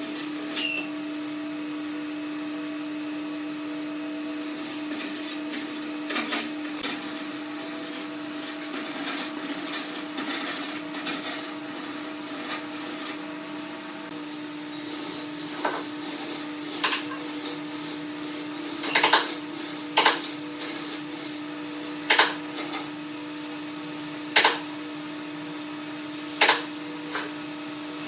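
Steady hum of a running workshop machine, with scattered clicks and rubbing of wood being handled; from about two-thirds of the way through, several sharp wooden knocks a second or two apart.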